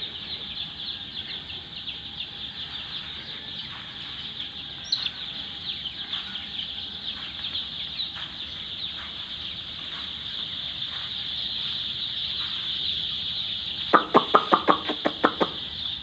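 A large flock of four-day-old chicks peeping in a dense, steady high-pitched chorus. About two seconds before the end, a person makes a quick run of about eight short, sharp sounds at the flock. This is the kind of noise that makes chicks turn alert and look up.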